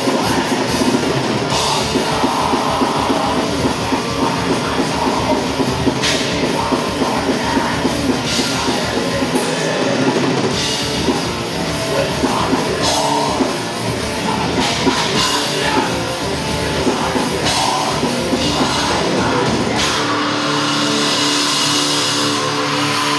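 Loud live extreme metal: a band plays fast, with drums and distorted guitars. About twenty seconds in, the drums drop out and held guitar chords ring on.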